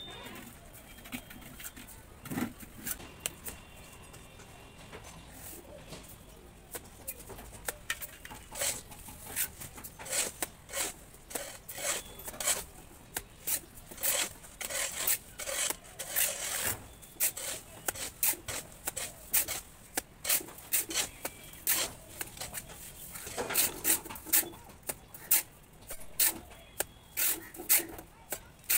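Mason's trowel scraping and rubbing against a brick wall in quick, irregular strokes, sparse at first and then coming several times a second.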